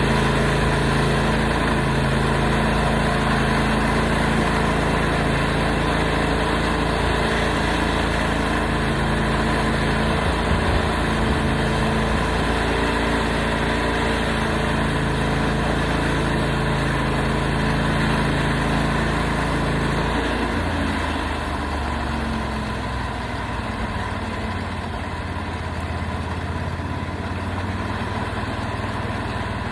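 Portable sawmill's gas engine running steadily under power, then about two-thirds of the way in its pitch drops and it settles to a lower, quieter run, as when the throttle is eased back.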